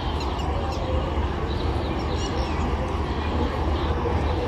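Railway station platform ambience: a steady low rumble and hum with the murmur of a distant crowd, and a few short high chirps near the start and again about two seconds in.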